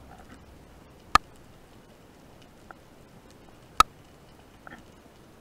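Sharp clicks heard underwater, two loud ones about two and a half seconds apart with a fainter tick between them, over a steady low hiss.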